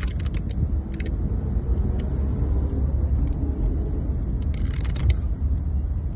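Low, steady rumble of a car driving, heard inside the cabin, with scattered light clicks and taps near the start and a cluster of them about five seconds in.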